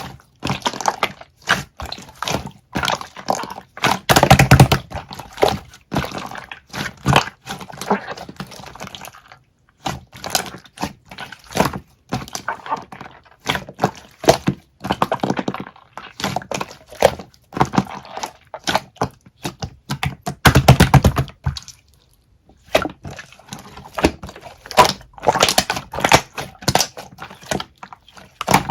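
Hands squishing, stretching and pressing slime, giving irregular wet clicks and crackling pops, with denser bursts of crackling about four seconds in and again near twenty-one seconds.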